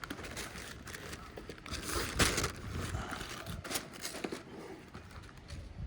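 Crinkling and rustling as hands work on a kite, putting a patch on it, with irregular small clicks and scrapes; the loudest rustle comes about two seconds in.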